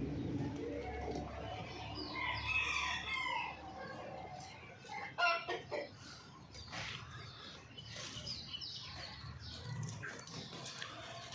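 Chickens clucking, with a rooster crowing and a cluster of short loud calls about five seconds in.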